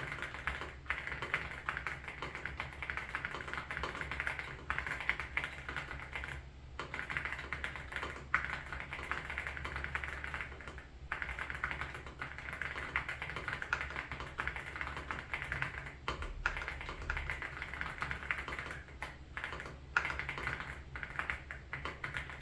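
Mechanical keyboard being typed on in a fast, continuous run of key clacks, pausing briefly a few times.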